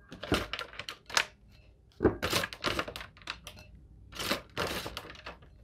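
Irregular clicks, knocks and rustles as shredded green papaya is tossed into a mortar, against a wooden pestle and the bowl.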